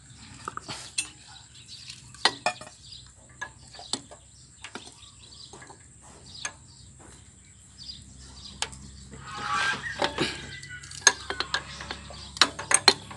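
Metal tools clinking and clicking against metal fittings in scattered sharp knocks as a diesel injector fuel line is being undone, with a brief scraping rustle about ten seconds in.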